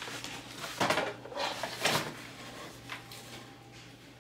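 Cardboard box and its packaging being opened and handled as a Wi-Fi gateway is lifted out: several short rustles and scrapes of cardboard.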